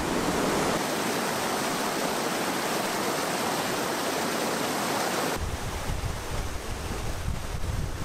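Steady rushing of a mountain stream. About five seconds in it cuts abruptly to wind rumbling on the microphone.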